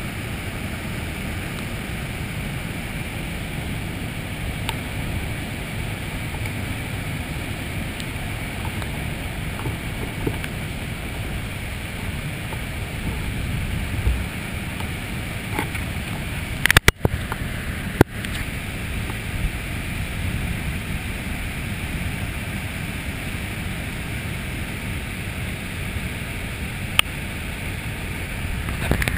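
Granite Falls, a large waterfall swollen by two days of rain, crashing over granite slabs in a steady, fairly loud rush of white water, heard close up. A couple of sharp knocks break it briefly just over halfway through.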